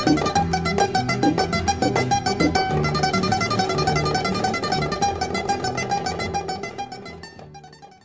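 Instrumental music of rapidly plucked strings over a bass line, fading out over the last two seconds.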